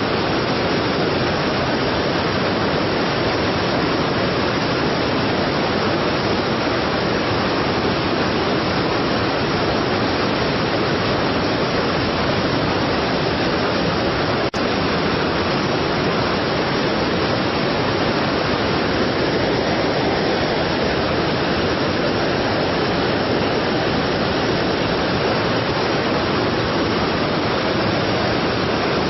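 Strong waterfall, falling water rushing in a loud, steady, unbroken stream of noise. One brief click with a momentary dip comes about halfway through.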